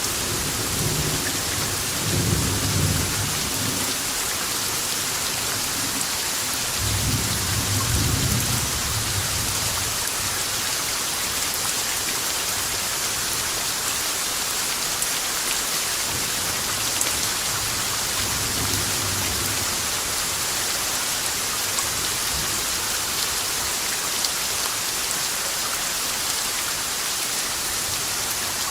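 Steady heavy rainfall hissing, with low rolls of thunder rumbling in the first few seconds, again about seven seconds in, and faintly once more past the middle.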